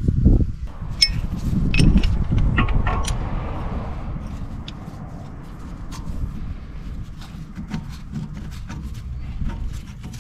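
Metal clicks and knocks of a screw-type brake caliper piston wind-back tool being handled and seated against a rear caliper piston. There are several heavier low thuds in the first few seconds, then lighter scattered clicks.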